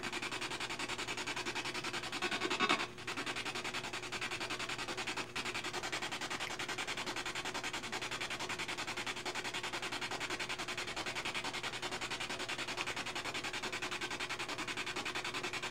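Radio-scanning spirit box (ghost box) sweeping through stations: a continuous, rapidly chopped hiss of static. A brief louder burst comes a little under three seconds in.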